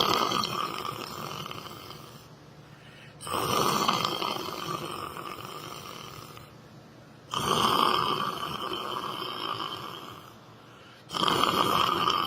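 A person snoring in slow, regular breaths: each snore starts sharply and fades away, a new one coming about every four seconds, three times after the first one dies down.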